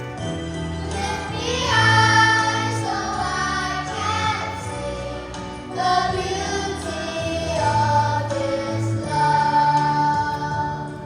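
Children's choir singing a song in held phrases over a musical accompaniment with sustained low notes.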